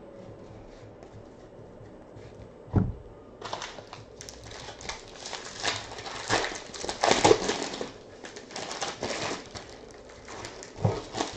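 Foil wrapper of a baseball card pack crinkling and tearing as it is ripped open by hand. There is a single knock about three seconds in and another near the end.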